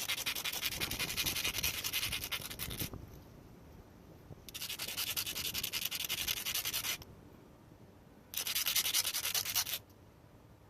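Rapid scraping and rubbing on the cut end of a steel brake line, deburring it smooth so a compression-fitting ring will slide on, in three bursts with short pauses between.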